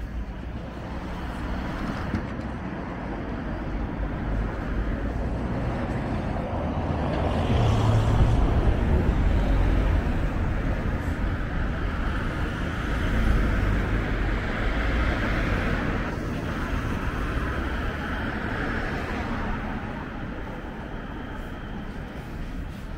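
City street traffic: cars and other vehicles passing, a deep engine rumble and tyre hiss swelling about a third of the way in and again past the middle.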